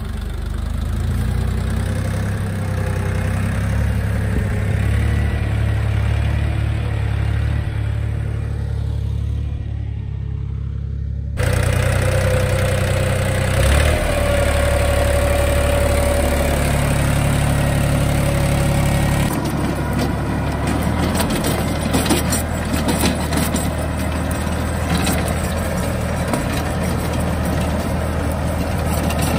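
DongFeng 244 G2 mini tractor's diesel engine running steadily while it drives a rotary tiller through ploughed ground at slow speed. The sound changes abruptly twice, about eleven and nineteen seconds in.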